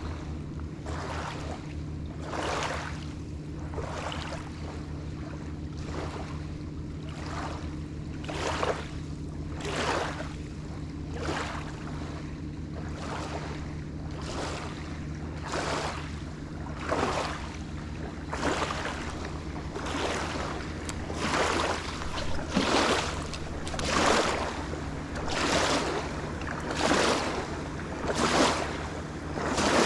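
Small waves lapping onto a pebble shore, one wash about every second and a half, growing louder in the second half, over a steady low hum.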